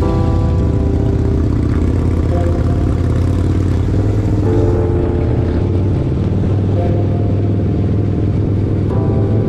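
Harley-Davidson V-twin motorcycle engines running as the bikes pull away and ride off, the engine note shifting in pitch a few times.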